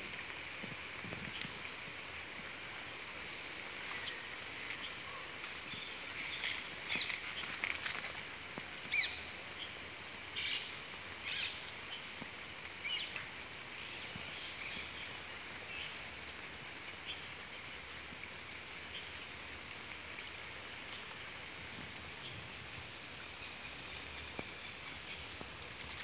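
Outdoor riverside ambience: a steady hiss with a series of short bird chirps, some sliding quickly in pitch, clustered from about 3 to 13 seconds in and then thinning out.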